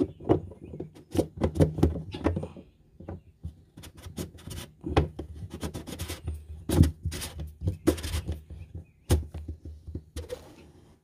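Plastic inspection hatch cover being turned by hand in its ring: an irregular run of plastic clicks, knocks and scrapes.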